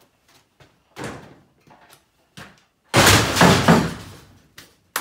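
A knock about a second in, then a loud metallic crash about three seconds in, rattling on for about a second, as a damaged pickup front-end part is dropped onto a pile.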